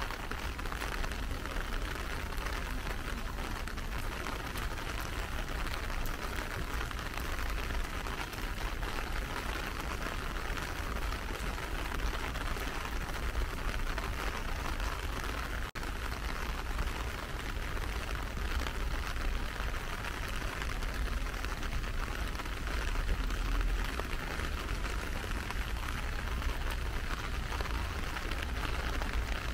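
Steady rain falling, an even hiss of raindrops, with a split-second break about halfway through.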